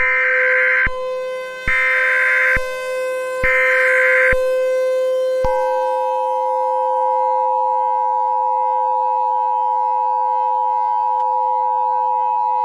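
Emergency Alert System header: three one-second bursts of screechy SAME digital data with short gaps between them. About a second after the last burst, the steady two-tone attention signal starts and holds, announcing an emergency alert. A steady low tone sounds underneath throughout.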